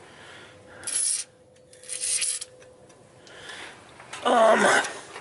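Two short hisses of a WD-40 aerosol can spraying, about a second in and again around two seconds in. Near the end comes a brief bit of a man's voice, louder than the spray.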